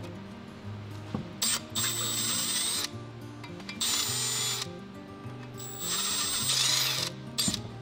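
Cordless drill spinning a disc attachment against a boat's propeller strut in three bursts of a second or so each, plus two short blips. Each burst has a high motor whine over a scraping, grinding noise.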